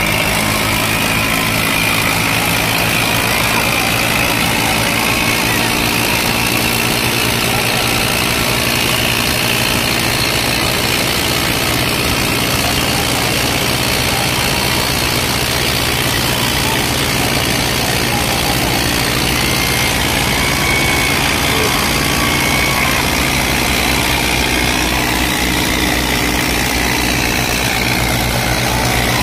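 Swaraj 855 XM and old Eicher 5660 tractors' diesel engines running flat out under heavy load as the two tractors pull against each other in a tug-of-war. The sound is a loud, steady engine drone that holds without letting up.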